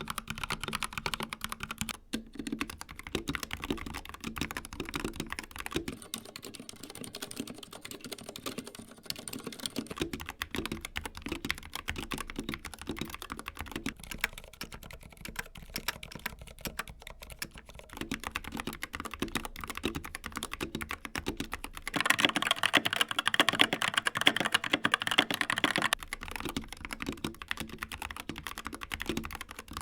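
Typing on a series of mechanical keyboards in turn, each for about eight seconds: an Akko 3068B Plus with Jelly Black switches, a CZC Halfling with Cherry MX Silent Red switches, a Glorious GMMK Pro with Gateron Black Ink switches, then a Skyloong GK61 with Gateron Optical Brown switches. The key clatter changes character with each board and is loudest and brightest at the start of the last one.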